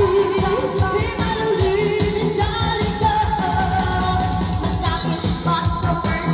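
A woman singing live into a handheld microphone through a PA, backed by an electronic keyboard with a steady beat.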